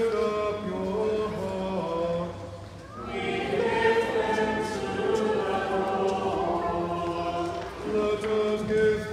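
Voices singing a sung part of the Mass in long held notes, pausing briefly between phrases about three seconds in.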